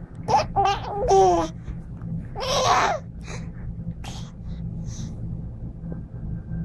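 Young baby babbling and cooing: a few high vocal sounds with gliding pitch in the first second and a half, then a breathier sound about two and a half seconds in, over a steady low hum.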